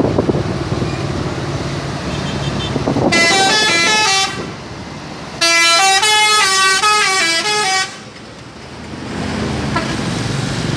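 Bus 'telolet' horn, a multi-tone musical air horn, playing two quick melodic runs of stepped notes, one about three seconds in and a longer one about five and a half seconds in, over the low running noise of vehicle engines.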